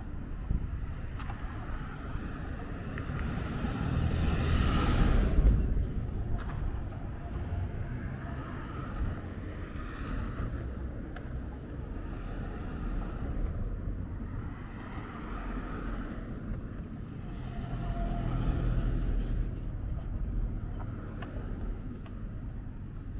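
Road traffic: cars passing one after another over a steady low rumble. The loudest pass comes about five seconds in and another near eighteen seconds.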